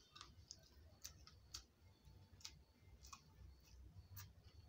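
Near silence with faint, scattered clicks of eating by hand: chewing and fingers mixing rice on a steel plate.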